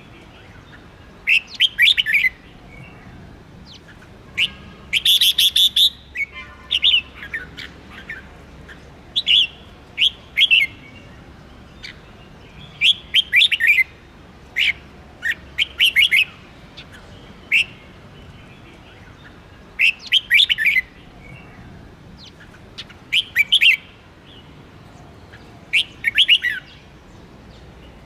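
Red-whiskered bulbul singing: short phrases of quick whistled notes, one phrase every two to three seconds.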